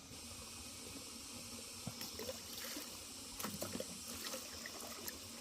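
Water running steadily from an opened outlet, with a few light knocks and splashes about two and three and a half seconds in.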